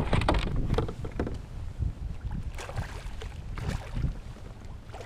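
Water splashing as a hooked largemouth bass thrashes at the surface beside a kayak, several irregular splashes, most of them in the first second and a half. Wind rumbles on the microphone throughout.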